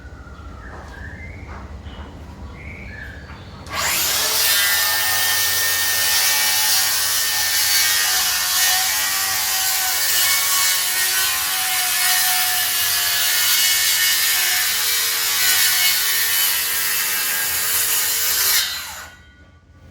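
DeWalt DCS578 cordless circular saw cutting wood: it comes in suddenly about four seconds in, runs loud and steady with a whine for about fifteen seconds, and stops abruptly near the end. Before it there is only a low rumble.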